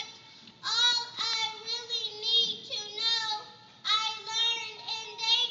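A young child singing a melody, holding high notes in phrases of about a second with short breaks between them.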